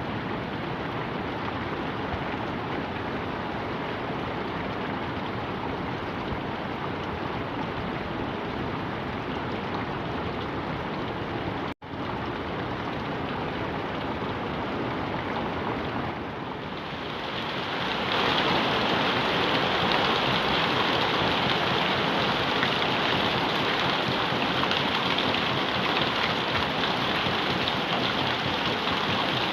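Steady rain falling. The sound drops out for an instant about twelve seconds in. From about seventeen seconds in it grows louder and hissier as the rain gets heavier.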